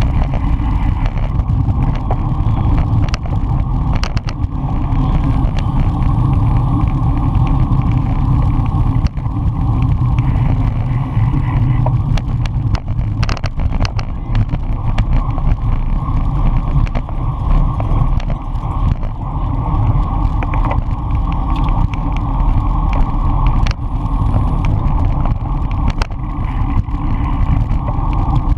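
Wind buffeting a bicycle-mounted action camera's microphone at race speed, a steady low rumble with road and tyre noise, broken by scattered sharp clicks.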